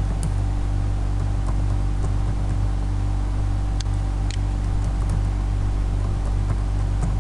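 Steady low electrical hum with hiss from the recording microphone, with a few faint clicks, one near the start and two at about four seconds.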